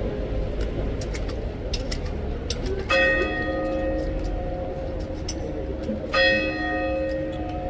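Large clock bell striking four o'clock, one slow stroke about every three seconds. Two strokes fall inside, about three and six seconds in, each ringing on with a slowly fading hum. Underneath is steady low background noise.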